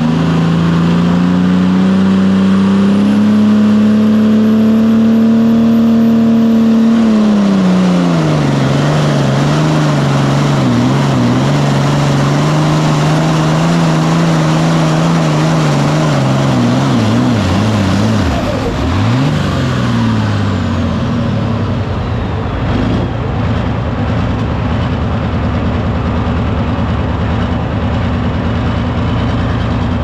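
John Deere Super Farm pulling tractor's turbocharged diesel engine at full power during a pull, heard from the driver's seat. Its pitch climbs for the first seven seconds, drops sharply and wavers, then falls away about twenty seconds in as the pull ends, and the engine runs on steady at a lower pitch.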